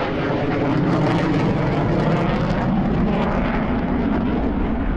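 A pair of F-16 fighter jets flying overhead: loud, steady jet engine noise that swells over the first second and then holds, with a rough crackle in it.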